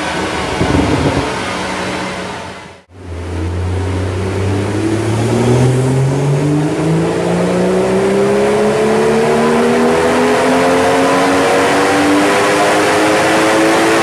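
BMW M140i's turbocharged straight-six, stage 2 tuned and breathing through an Akrapovic downpipe and M Performance cat-back exhaust, running on a chassis dyno. A short rev about a second in, a brief drop-out near three seconds, then a wide-open pull with the exhaust note climbing steadily in pitch for about ten seconds.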